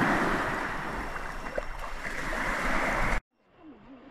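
Small waves washing over sand in shallow water, a steady rushing wash with a few small splashes, that cuts off abruptly about three seconds in. Faint voices follow.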